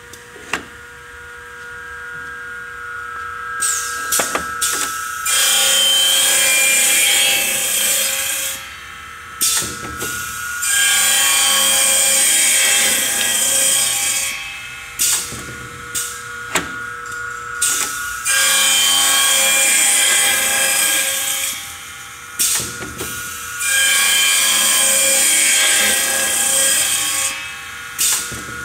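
Automatic wedge saw cutting wooden strips. The blade runs up over the first few seconds, then makes four cuts of about three and a half seconds each. Between the cuts there are sharp clicks and clunks from the clamp and feed over the steady whine of the spinning blade.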